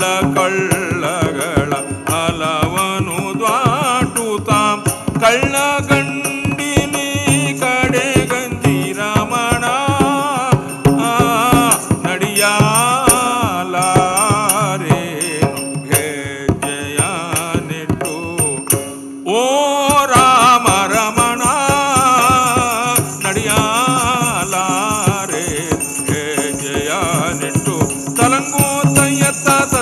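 Live South Indian accompaniment for Togalu Gombe Aata shadow puppetry: a voice sings a wavering, ornamented melody over a steady drone, with fast, dense metallic percussion. About two-thirds of the way through, the sound drops out briefly, then the singing comes back strongly.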